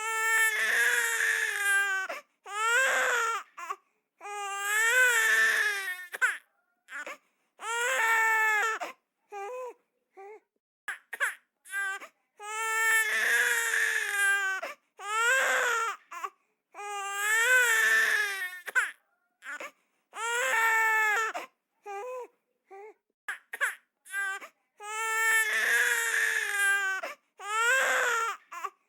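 Baby crying sound effect: a string of wailing cries, each one to two seconds long with a wavering pitch, broken by short gasping breaths and brief silences.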